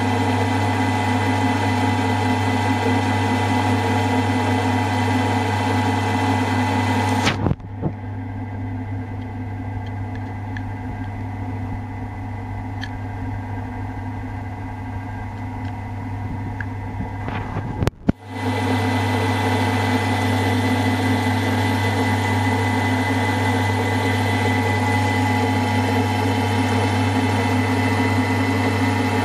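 Milling machine running steadily as a 1/8-inch end mill cuts a full quarter-inch-deep slot through a cast-iron drill-head casting, a constant machine hum. In the middle the sound drops abruptly to a quieter stretch for about ten seconds, then the louder hum returns just as abruptly.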